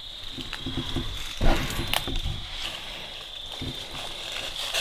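Irregular footsteps of people walking through the woods, the heaviest about a second and a half in, over a steady high-pitched insect trill.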